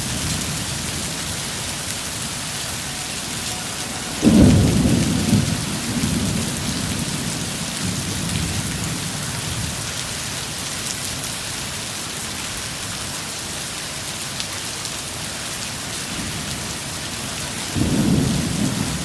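Heavy rain falling steadily, with two low rolls of thunder: a loud one about four seconds in that dies away over a couple of seconds, and another near the end.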